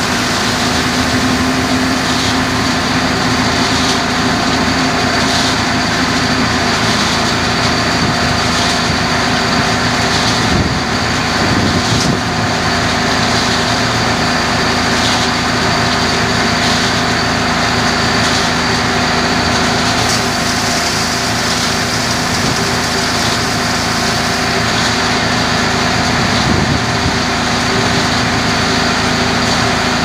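Diesel concrete mixer pump and its aggregate feeder running steadily: a loud, constant machinery din with a faint regular tick about every second and a half.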